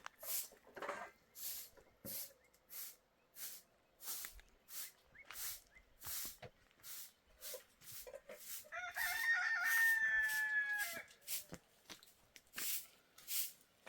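A rooster crows once, a long call lasting about two seconds, starting a little past the middle. Under and around it come regular swishing strokes, about one and a half a second.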